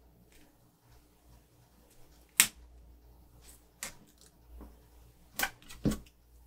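Fingers handling paper planner stickers, peeling them and pressing them down onto the page, making a handful of short, sharp clicks and taps. The loudest comes about two and a half seconds in.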